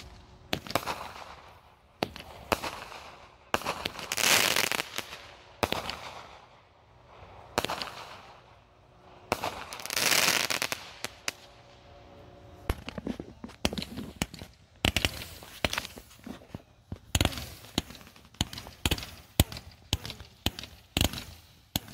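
Aerial fireworks going off: sharp launch and burst bangs, two long hissing rushes about 4 and 10 seconds in, then a rapid run of pops and bangs through the second half.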